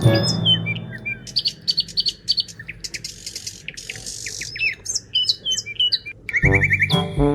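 Birds chirping: many short, high calls and quick falling whistles in rapid succession. Background music comes back in near the end.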